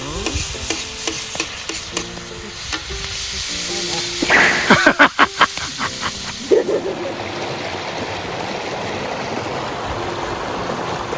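Background music over a crackling, sizzling hiss. About four seconds in comes a short run of about five loud, rapid pulses, followed by a steady rushing hiss.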